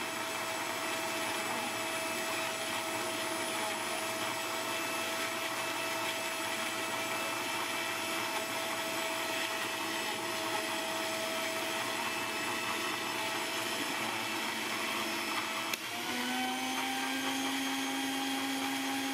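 Khaluck electric blender running steadily, its motor whining as it blends rambutan juice. About three-quarters of the way through there is a click, and the motor shifts to a different steady pitch.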